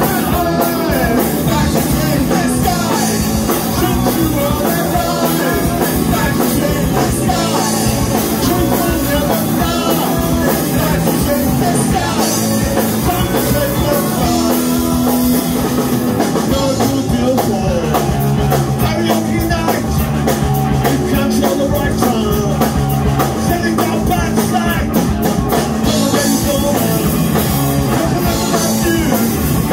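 Punk rock band playing live: electric guitars, bass guitar and drum kit with singing, loud and without a break.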